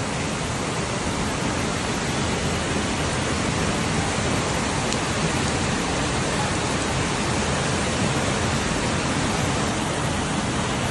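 Torrent of floodwater rushing down a street in heavy rain, a steady, unbroken rush of water.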